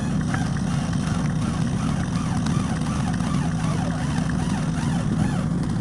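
An engine running steadily without letting up, with a higher wavering tone rising and falling over it.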